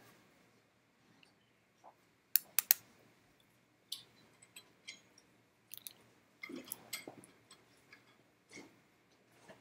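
Scattered sharp clicks and small knocks, with a quick run of three about two seconds in and more irregular ones after.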